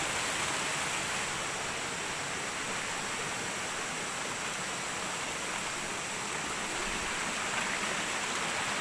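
Steady rushing of a stream, an even wash of flowing water with no breaks.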